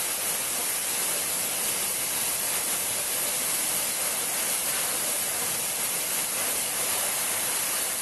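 Compressed-air blow gun hissing steadily as it blows washing petrol out of a magneto-type lathe spindle ball bearing.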